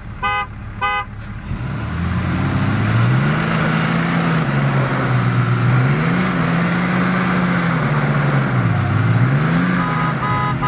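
Three short car-horn honks, then the engines of an armored Chevrolet Suburban and a Dodge Ram 2500 Cummins diesel revving hard under load as the two trucks pull against each other, tyres spinning in the dirt. The engine pitch climbs, dips and climbs again several times, and the horn honks again near the end.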